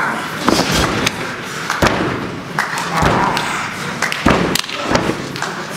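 Several irregular dull thumps of wrestlers' bodies and limbs hitting the canvas of a wrestling ring as they grapple on the mat.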